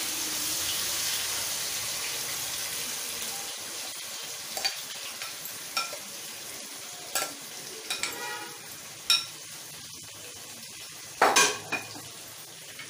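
Green-marinated chicken sizzling as it goes into hot ghee in a kadhai; the frying hiss is loudest at first and dies down over the first few seconds. A spoon knocks and scrapes against the bowl and the pan several times, with the loudest clatter near the end.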